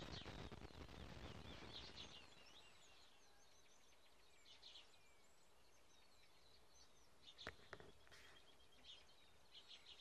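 Faint songbirds chirping and twittering, many short scattered calls and quick trills, over a low rumble in the first two seconds. A single sharp click about seven and a half seconds in.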